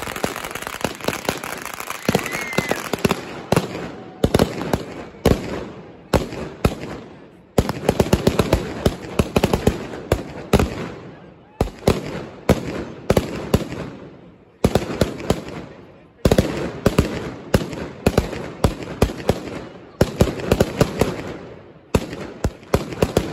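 Mascletà firecracker barrage: strings of ground-level firecrackers exploding in rapid volleys of sharp bangs. The volleys break off briefly every couple of seconds and then start again.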